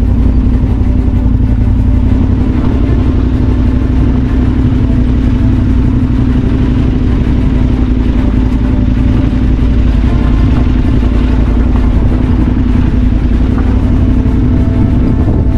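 Motorcycle engine running loud and steady at a constant pitch, with a heavy low rumble underneath.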